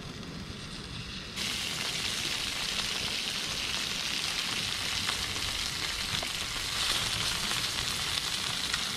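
Melted garlic butter poured over split lobster halves on a hot disposable barbecue, sizzling loudly. The sizzle starts suddenly about a second and a half in and then holds steady.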